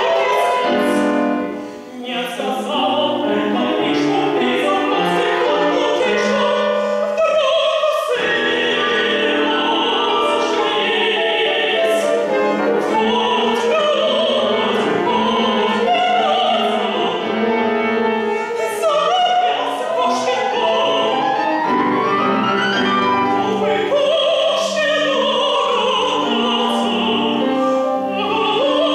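Woman singing a Russian art song in classical operatic style, with piano accompaniment, with a brief break about two seconds in.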